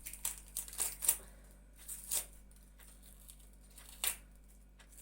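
Dry onion skins crinkling and tearing in several short, crisp rustles as they are handled and peeled.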